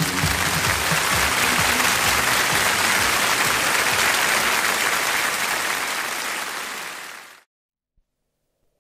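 Television studio audience applauding as a live song ends, with the last of the music trailing underneath at first; the applause fades and then cuts off abruptly about seven seconds in.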